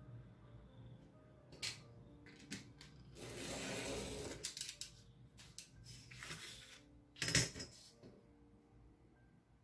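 Craft knife drawn along a steel ruler, slicing the excess laminating film and paper with a scratchy hiss lasting over a second, then a shorter cut. Light metallic clinks of the ruler and knife being handled come between the cuts; the sharpest clink comes about seven seconds in.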